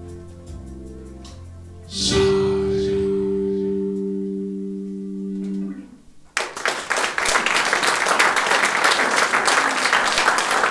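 The song ends on a final electric guitar chord, struck about two seconds in, held for nearly four seconds and then cut off sharply. Audience applause breaks out right after it and continues.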